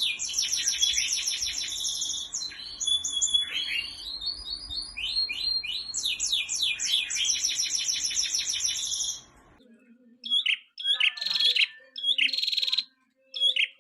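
Caged songbird singing fast high trills of rapid down-slurred notes in repeated phrases; about two-thirds of the way through the song breaks off and gives way to separate short, sharp chirps with pauses between them.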